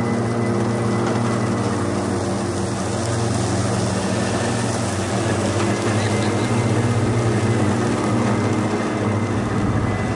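Two battery-electric mowers, an EGO Z6 zero-turn and a Greenworks Optimus Z stander, running flat out at top blade and ground speed with their cutting blades spinning. It is a steady hum with a thin, high whine above it.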